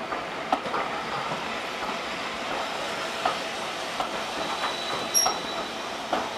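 Wheels of vintage Southern Railway passenger coaches rolling slowly past, knocking irregularly over rail joints and pointwork. A short high squeal from the wheels about five seconds in.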